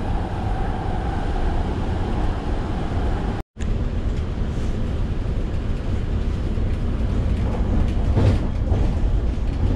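MTR train running, a steady low rumble heard inside the carriage. The sound cuts out completely for a moment about three and a half seconds in.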